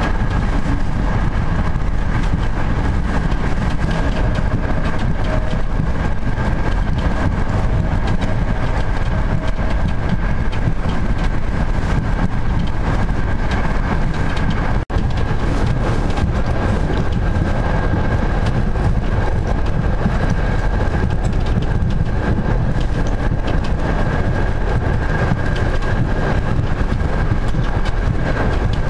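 Steady running noise inside a moving passenger train carriage: a loud low rumble from the wheels and track with a thin steady whine above it. It is cut off for a split second about halfway through.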